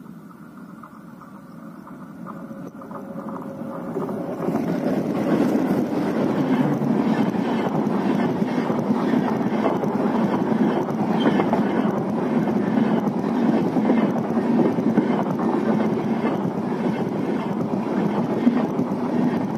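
A passenger train passing close by: its twin WDG3A diesel locomotives come up and it grows louder over the first four seconds. Then LHB coaches roll past at speed with a steady rumble and a rhythmic clatter of wheels on the rails.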